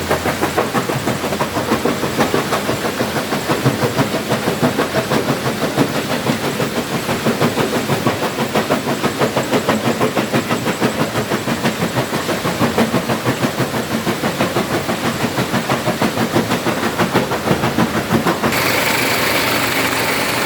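Stone crusher machine running, crushing rock with a fast, even knocking rhythm of about four beats a second. Near the end the sound changes to a steadier, hissier run.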